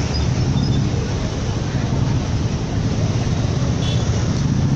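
Steady traffic noise of motorcycles and scooters running at low speed in a packed, slow-moving crowd, a continuous engine rumble.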